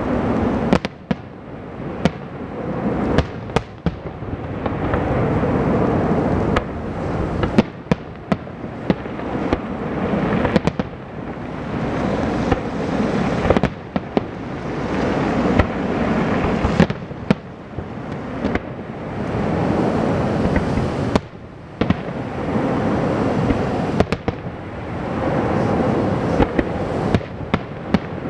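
Aerial firework shells bursting in a display: a long run of sharp bangs, sometimes several in quick succession, over a continuous rumble that swells and fades every few seconds.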